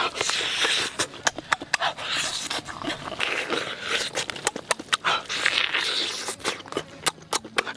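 Close-up eating sounds of a man biting, tearing and chewing roasted chicken: many quick wet mouth clicks and smacks with bursts of noisy crunching and breathing.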